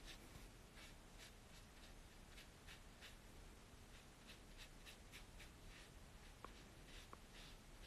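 Faint strokes of a brush pen on paper as a drawing is coloured in: short, irregular swishes, roughly two a second.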